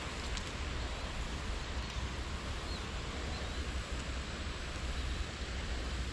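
Steady wind noise: wind buffeting the microphone with a low rumble, over a hiss of wind through the grass and leaves.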